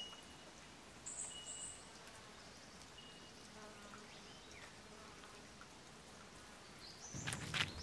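Quiet forest ambience with faint, short, high-pitched chirps. About seven seconds in, footsteps on the track begin: a quick run of louder clicks and crackles.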